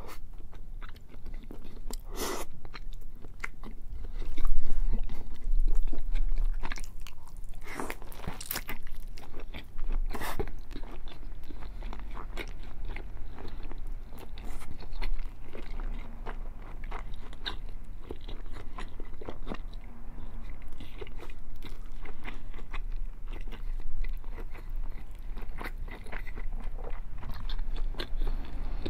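Close-up biting and chewing of a thick whole slab of bacon, with many sharp wet mouth clicks. A few louder bites fall in the first ten seconds.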